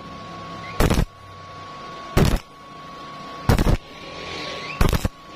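Stick-welding arc on thin steel square tube struck in short bursts: four brief sizzles about a second and a third apart, each lasting about a quarter second, with a faint hiss between. The on-off pulsing is a spot-welding technique that keeps the arc from burning through thin metal.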